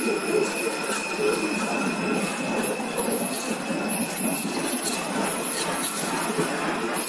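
A 2009 Triumph Speed Triple's 1050 cc triple running at steady road speed, heard mostly as a steady rush of wind and road noise with a thin, steady high-pitched whine over it.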